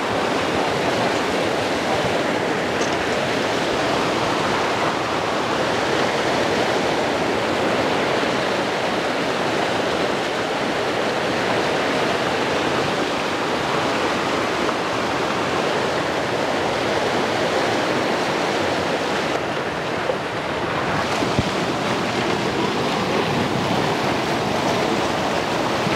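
Swollen, fast-flowing river rushing and churning over the bank, a steady noise of turbulent water.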